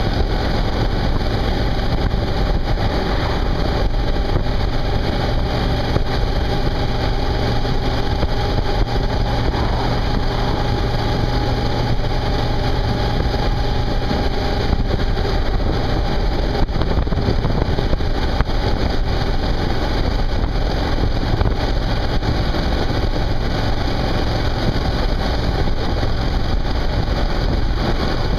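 Suzuki V-Strom 650's V-twin engine running at a steady cruise, heard from the bike with a constant rush of wind and road noise.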